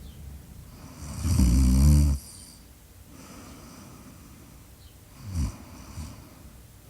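Snoring: one long, loud, rattling snore about a second in, lasting just over a second, then a shorter, quieter snore with a falling pitch about five seconds in.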